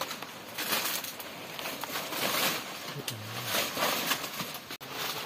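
Dry palmyra palm fronds rustling and scraping in quick, irregular bursts.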